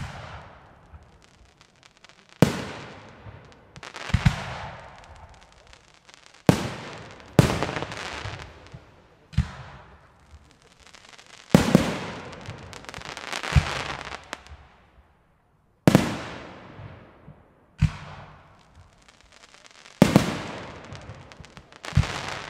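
Aerial firework shells bursting overhead: about ten sharp bangs spaced one to two seconds apart, each followed by a long echoing tail that fades away.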